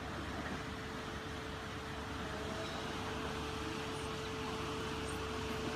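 Houseboat engine idling steadily, with a steady mid-pitched whine over the low hum.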